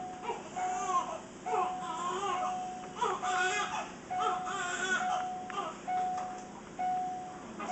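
Infant crying and fussing in a string of short, high cries, over a steady electronic tone that repeats about once a second.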